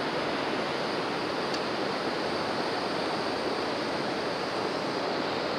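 Shallow river water running over and around rocks: a steady, even rush.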